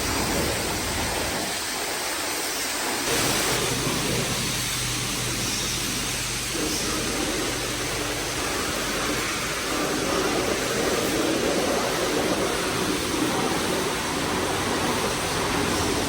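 Water spraying steadily onto a semi truck during a truck wash, with a low steady hum underneath.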